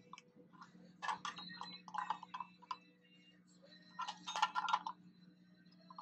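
Steel pliers clicking and clinking against the brass fitting of a refrigeration gauge manifold as a gauge head is turned down tight onto Teflon-taped threads, in three bursts of quick clicks. A low steady hum runs underneath.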